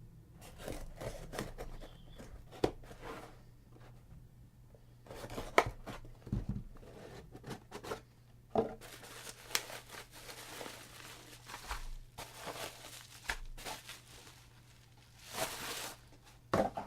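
Hands opening a cardboard shipping box: tape tearing and packing material rustling and crinkling, with scattered sharp clicks and knocks.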